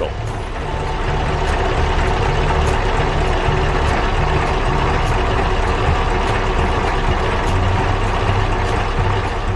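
Heavy truck engine running steadily, a deep even note with a broad hiss over it.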